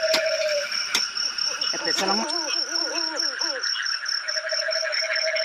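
Night-time forest insects, crickets among them, trilling steadily in rapid pulses, with a lower pulsing call at the start and again near the end. There are a few sharp knocks in the first two seconds and a short wavering call around the middle.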